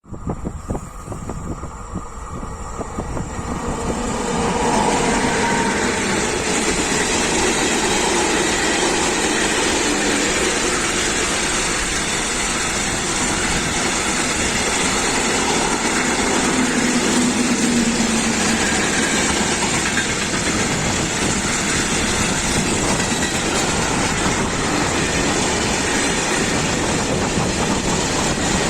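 Empty freight train passing close by behind an ASEA-built electric locomotive: wheels and empty wagons running over the rails, growing louder over the first few seconds and then holding loud and steady.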